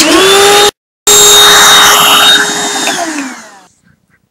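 Vacuum cleaner motor whining as it spins up to speed, breaking off abruptly for a moment just before a second in and coming back at full speed. It runs steadily, then is switched off about three seconds in, its whine falling in pitch as it winds down.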